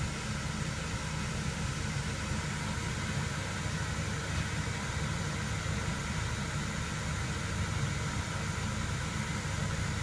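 Diesel-fired hotbox burner's blower running steadily through its 30-second post-purge after the burner is switched to disable, a constant low-pitched running noise with a hiss over it.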